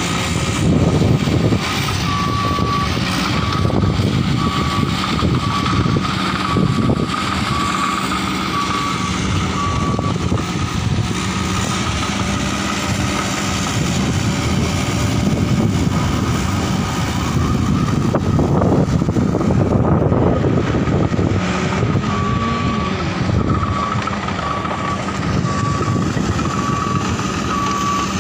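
Heavy diesel earthmoving machine trimming coal in a ship's hold, its engine running hard under load with surges in revs. Its reversing alarm beeps steadily in two long runs, one starting about two seconds in and one starting about three-quarters of the way through.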